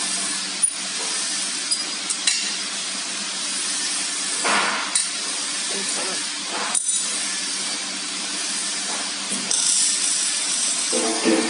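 Galvanized steel frame tubes and fittings being handled and fitted together by hand: scattered light metal clinks and clicks, with a brief scrape about four and a half seconds in, over a steady background hiss and low hum.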